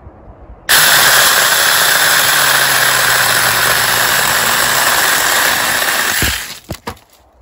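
Saker 20-volt cordless mini chainsaw, its electric motor and chain starting suddenly about a second in and running steadily at full speed for about five and a half seconds, then cutting off. A few sharp clicks follow.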